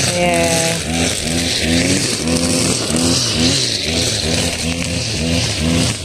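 Small petrol engine, a brushcutter used to cut the overgrown grass, running steadily, its pitch swelling up and down about twice a second as it is worked.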